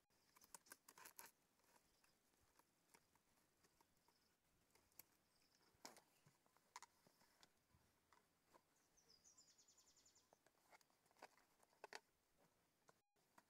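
Faint rustles and clicks of a paper delta trap and its wire hangers being handled, scattered through otherwise near silence.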